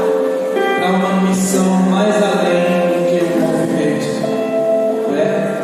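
Music with singing: a slow song of long held notes over instrumental accompaniment.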